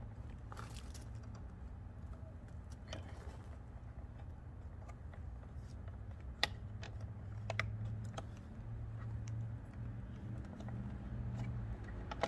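Scattered small plastic clicks and taps as a clip is worked and a light housing is freed from a Toyota Tacoma, over a low steady hum.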